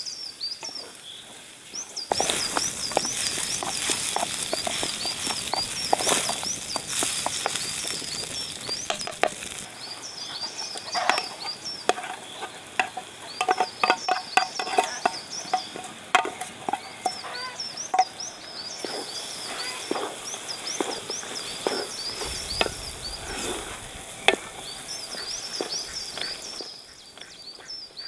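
Cooking in a metal pot over a wood fire: sizzling, a wooden spoon stirring, and fried eggs clinking and scraping off a metal plate into the pot, from about two seconds in until near the end. Rapid high chirps repeat in the background.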